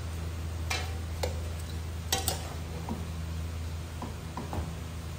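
Metal cooking utensils clinking and scraping against a large metal pot while stir-frying pancit canton noodles, with about eight irregular clicks as the noodles are tossed.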